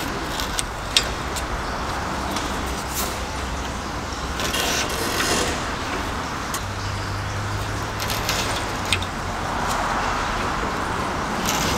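Scattered clicks and light knocks of hand work as an external transmission cooler is slid into place against the radiator and its push-through mounting rods are fed through, over steady shop background noise. A low hum comes in for a couple of seconds past the middle.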